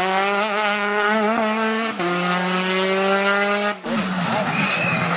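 Rally car engine pulling hard at high revs, its note rising steadily, dropping briefly for a quick upshift about two seconds in and climbing again, then breaking off abruptly a little before the end.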